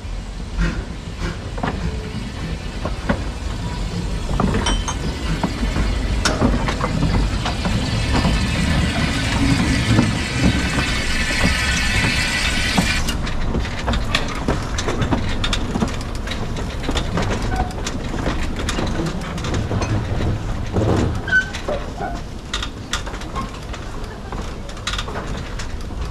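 Narrow-gauge saddle-tank steam locomotive Barber moving slowly over the track: a steady rumble with many metallic clicks and knocks from the wheels and rail joints. Over the first half a hiss with a whistling edge grows louder and then cuts off suddenly about halfway through.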